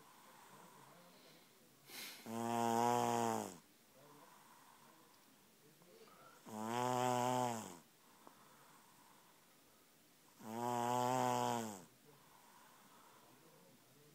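A sleeping person snoring: three long, deep snores about four seconds apart, each lasting a little over a second, with quiet between them.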